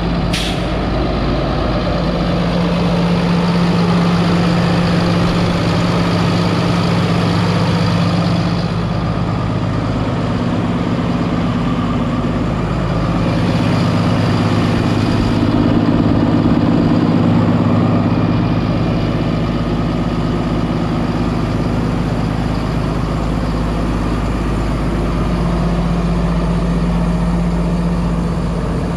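Diesel engine of a 2018 International 4300 box truck idling steadily.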